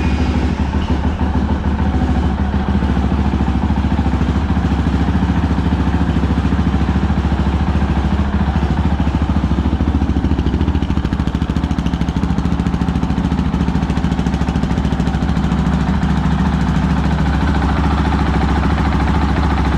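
Honda CRF450L's single-cylinder four-stroke engine idling steadily just after a cold start without the choke, warming up. The owner says it sounds a little funny.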